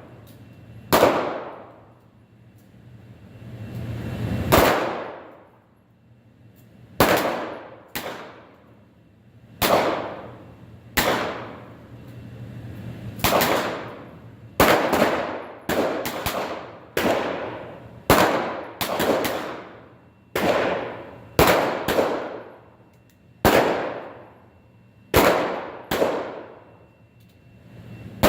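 Pistol gunfire from several shooters on a firing line during a Police Pistol Combat match: about two dozen shots at irregular spacing, sometimes two or three close together, each followed by a ringing echo.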